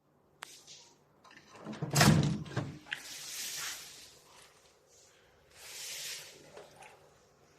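Handling noises: a few light clicks, a heavy knock about two seconds in, then rustling swishes twice, typical of something being unpacked and set down.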